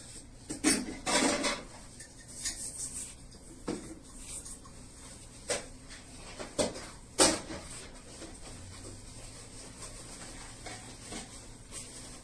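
Scattered clinks and knocks of hard objects being handled, about half a dozen separate strikes, the loudest about seven seconds in.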